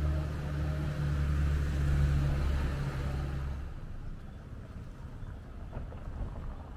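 A motor vehicle's engine passing with a low steady hum. It is loudest about two seconds in and dies away at about four seconds, leaving faint street background.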